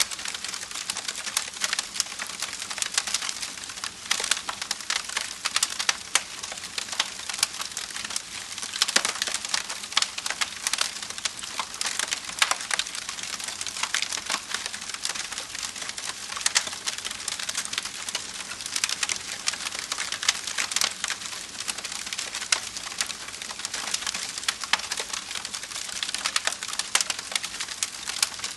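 Wood fire crackling: a dense, irregular stream of small pops and snaps over a steady hiss, with a few louder snaps here and there.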